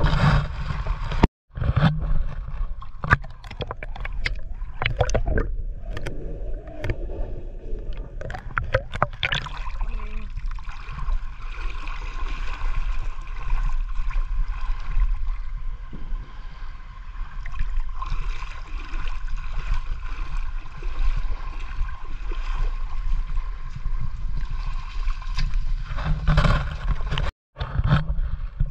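Water gurgling and sloshing with a steady low rumble, typical of a microphone working underwater, with scattered clicks and knocks in the first ten seconds or so.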